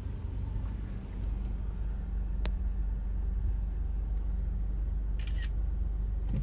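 Smartphone camera shutter clicking once about two and a half seconds in, then a short run of shutter clicks about five seconds in, over the steady low rumble of a car driving, heard from inside the cabin.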